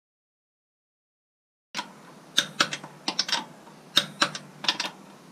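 Irregular sharp clicks and taps, about a dozen, over a low steady hum, starting after nearly two seconds of silence.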